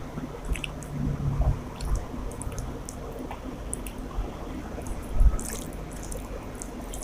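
Wet, close-up eating sounds: chewing soft rice and curry, with small smacking clicks and squishes, one a little louder about five seconds in.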